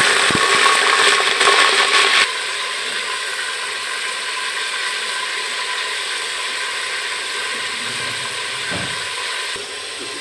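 Chunks of beef shank frying in hot oil in an aluminium pot: a loud, crackling sizzle for about the first two seconds, then a steadier, quieter sizzle.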